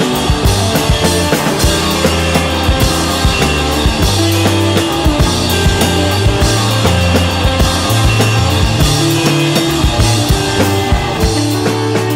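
Rock music soundtrack: a drum kit keeps a steady beat over a bass line that moves between held low notes.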